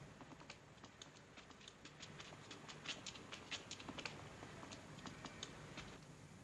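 Faint footsteps and shuffling on a stone floor: scattered, irregular light taps and clicks.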